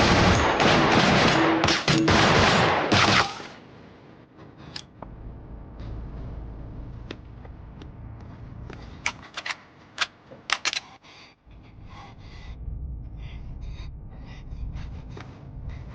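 Automatic gunfire in a loud continuous burst for about three seconds, then several scattered single shots over a low rumble.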